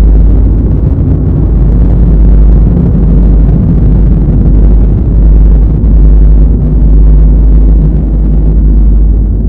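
Loud, low rumble of wind buffeting an action camera's microphone on open water, swelling and dipping in gusts.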